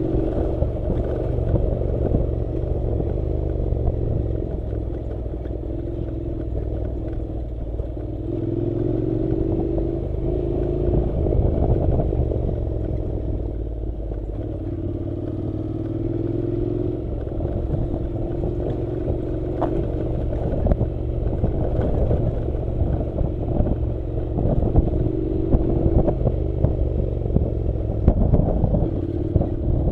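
Honda NC700 motorcycle's parallel-twin engine running steadily while riding a dirt road, its pitch shifting up and down, with clatter and knocks from gravel and bumps that come thicker near the end.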